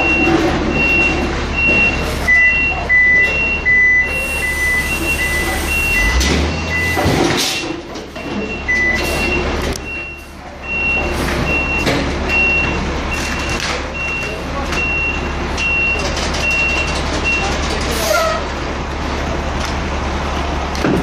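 Forklift reversing alarms beeping steadily, about one and a half beeps a second. A second, lower-pitched alarm joins for several seconds, then the higher one stops near the end. A steady low hum runs underneath.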